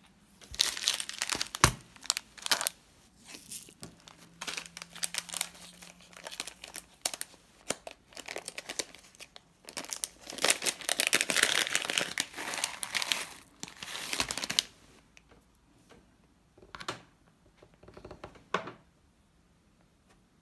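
Plastic packaging being handled, crinkling in irregular fits for about fourteen seconds, followed by two short light taps near the end.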